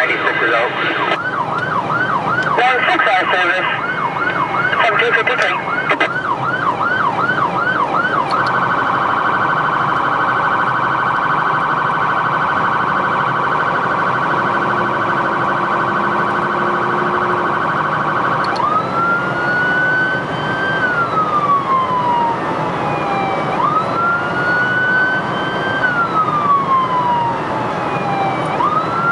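Electronic emergency-vehicle siren, heard from inside the responding vehicle. It sounds a fast yelp, changes to a rapid steady warble about eight seconds in, and then to a slow wail rising and falling from about eighteen seconds in.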